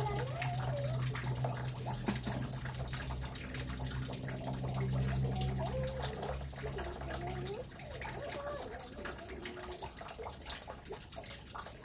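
A steady low hum that stops about two-thirds of the way through, with scattered small clicks from a Stihl chainsaw's guide bar and parts being handled during fitting. Faint wavering voices or calls come in now and then.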